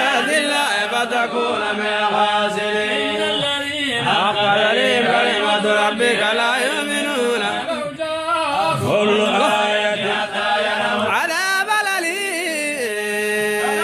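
A group of men's voices chanting together in a slow, melismatic Arabic Quranic chant, long notes gliding up and down over a steady held note that drops away near the end.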